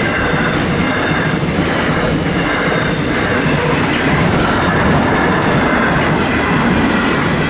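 Grain hopper wagons of a freight train rolling past at speed, a steady loud noise of steel wheels running on the rails.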